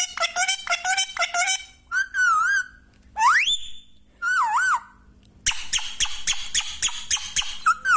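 Pet parrot vocalising: quick runs of short, high chirps, warbling notes, and one rising whistle about three seconds in, then another fast run of chirps.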